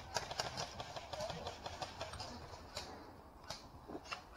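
Faint, irregular sharp clicks of airsoft guns firing at a distance, several a second at first and then sparser.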